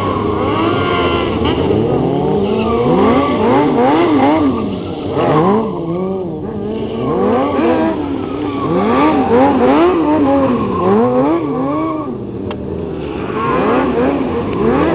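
Sportbike engines revving up and down over and over, the revs rising and falling every second or so as stunt riders hold wheelies on the back wheel.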